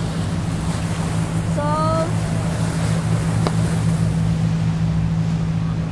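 Speedboat engine running steadily under way, with water rushing past the hull and wind on the microphone. A short rising tone sounds about two seconds in.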